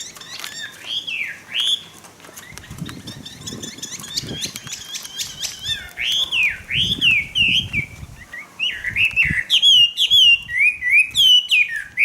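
Caged Chinese hwamei (họa mi) singing: loud, repeated whistled phrases of sweeping up-and-down notes that come faster and louder in the second half. Softer low bumps and rustles run beneath the song in the middle.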